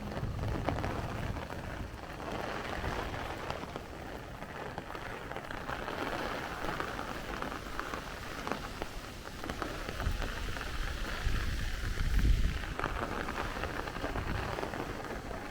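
Heavy downpour of rain falling steadily, with gusts of wind buffeting the microphone; the strongest gust comes about twelve seconds in.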